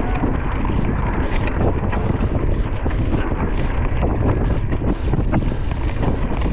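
Wind buffeting a rider's camera microphone during fast riding on a mountain bike, a steady rush and rumble with scattered small clicks and knocks.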